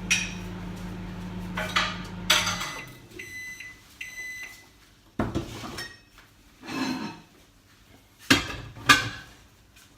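Microwave oven running with a steady low hum that stops sharply after a click about two and a half seconds in, followed by a couple of high electronic beeps. After that come several separate knocks and clatters of dishes being handled.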